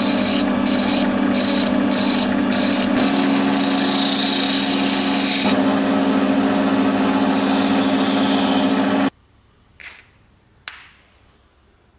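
Small metal lathe spinning a wooden handle with a steady motor hum and whine while a flat file rasps against the turning wood in even strokes, then sandpaper rubs on it. The lathe cuts off suddenly about nine seconds in, followed by two light knocks of the wooden handle being handled on the bench.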